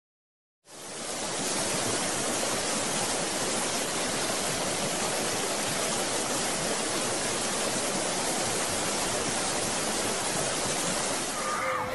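Fast river rushing over rocks in white-water rapids. The rush of water starts about a second in, after silence, and then holds steady.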